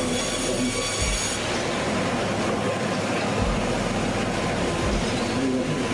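Power saw cutting through wood, a steady harsh mechanical rasp and whine. A set of high-pitched tones drops away about a second and a half in.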